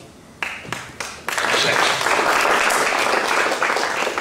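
Crowd of guests applauding: a few single claps at first, then the whole room breaks into steady applause about a second in.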